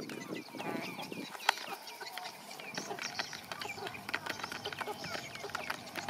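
Chickens pecking feed from plastic bowls: many quick, sharp beak taps, with short high chirping calls from the flock.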